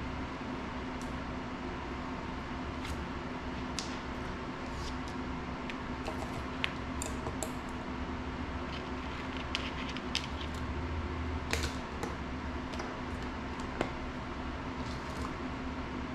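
Steady fan-like hum with a low drone, and scattered light clicks and taps of small tools and drone parts being handled at a workbench during FPV drone assembly.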